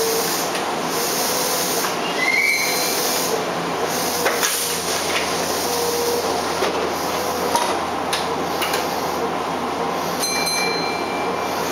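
Kyoto Municipal Subway 10 series car standing at a station with a steady hum. Its sliding passenger doors close with a thud about two-thirds of the way through, and a brief electronic tone sounds near the end.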